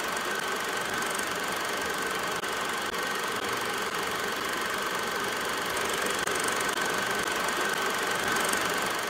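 Sound effect of a film projector running: a steady mechanical clatter with a thin, high, steady whine.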